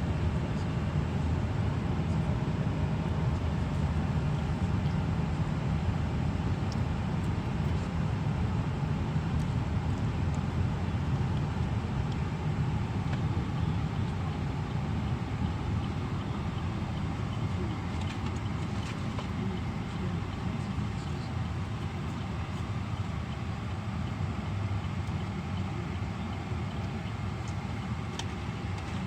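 Car cabin noise while driving: a steady low rumble of engine and tyres on the road, easing a little about halfway through.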